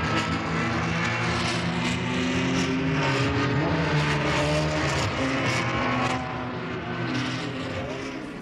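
Formula 1 racing cars' engines revving and passing at speed, their pitch rising and falling. The sound eases off about six seconds in.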